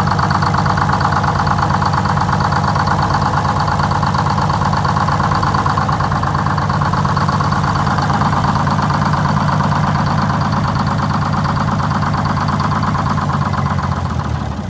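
Detroit Diesel 6-71, a two-stroke inline-six diesel with a Roots blower, idling with a steady, evenly pulsing note, then starting to die away at the very end as it shuts down. It is running on a mix of injector sizes, which the mechanic says keep it from running even.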